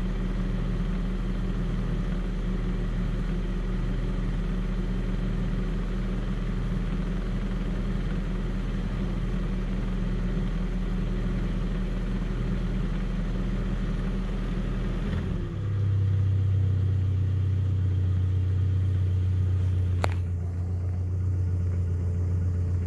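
A car engine idles steadily while warming up from a cold start. About fifteen seconds in, its note changes abruptly and settles into a steady, slightly louder hum. A single sharp click follows about five seconds later.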